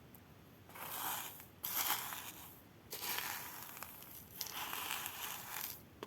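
Crinkly rustling as a stash of beads, sequins and seed beads is handled, in two long stretches: about a second in, and again from about three seconds in.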